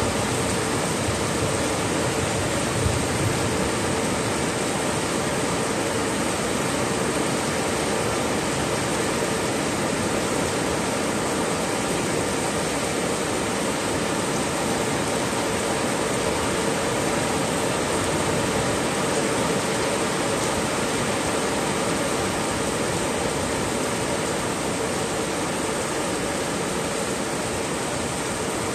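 Heavy sudden downpour: a steady, dense hiss of rain.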